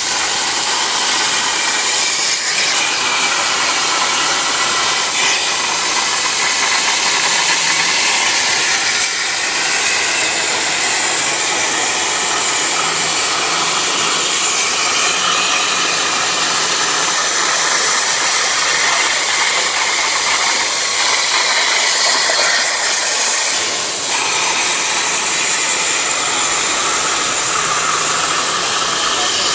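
CNC plasma cutting torch cutting metal plate: a loud, steady hiss that runs without a break.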